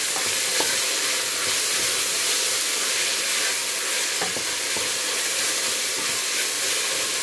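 Sliced onion, diced tomato and pepper sizzling steadily as they fry in oil in a stainless steel pot, while a wooden spoon stirs them, its strokes knocking lightly against the pot a few times.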